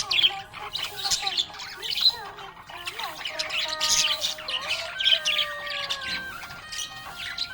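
Pet budgerigars chirping and warbling, with quick chirps in repeated clusters and some longer held notes running under them.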